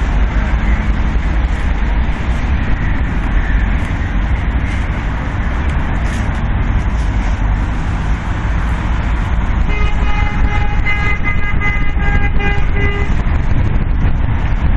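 Steady road-traffic rumble; about ten seconds in, a car horn sounds for about three seconds.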